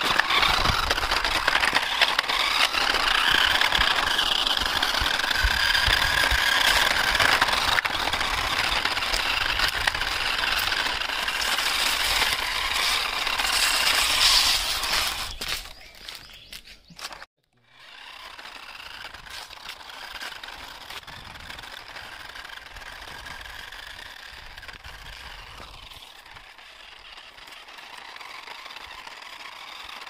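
Toy remote-control car driving on rough concrete: its small battery-powered motor whines over the rasp of the wheels. Louder for about the first fifteen seconds, then fainter after a brief break about seventeen seconds in.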